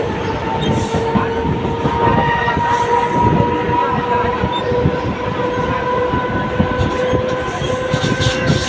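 Mumbai suburban local train running on the track: a dense rumble of wheels and cars with a steady whine that slowly rises in pitch, and a few sharp rail clicks near the end.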